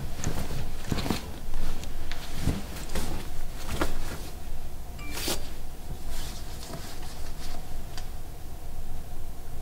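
Clothes hangers clicking and knocking along a wardrobe rail as garments are pushed aside, with fabric rustling; the clicks come irregularly, several in the first four seconds, one sharper knock a little after five seconds, and fainter ones later.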